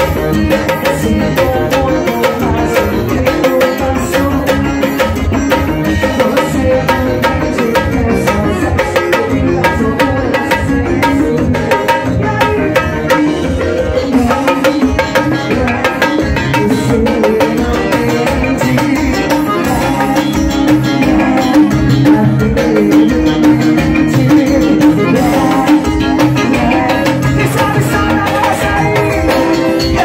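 Live forró band playing on stage: electric guitar, bass and keyboard over a steady dance beat.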